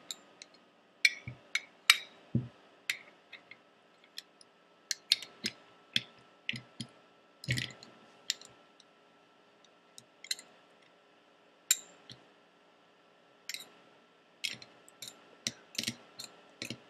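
Metal wrench clicking and clinking against the kingpin lock nut and truck of a roller skate as the nut is loosened: irregular sharp clicks, some in quick clusters, with short pauses between.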